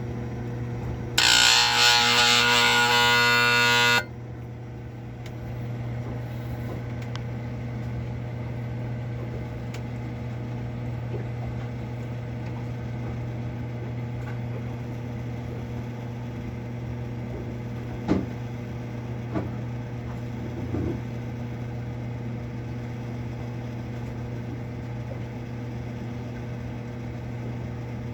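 Marine Air Systems Cabin Mate marine air conditioner humming steadily. About a second in, a loud harsh buzz lasts about three seconds and cuts off suddenly: the compressor struggling noisily to start. A few faint clicks come later.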